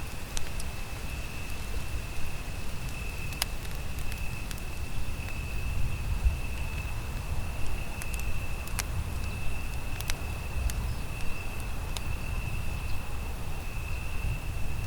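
Wood campfire crackling, with sharp pops every second or two over a low rumble, and a steady high tone behind it.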